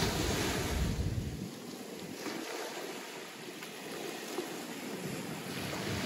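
Caribbean Sea waves washing onto the shore, a steady hiss of surf. Wind buffets the microphone with a low rumble for the first second or so and again near the end.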